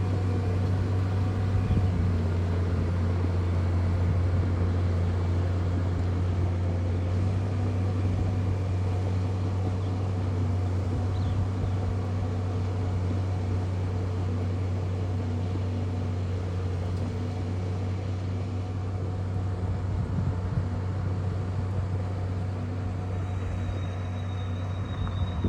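Bulldozer's diesel engine running steadily, a low drone that eases off slightly over time. A faint high whine joins it near the end.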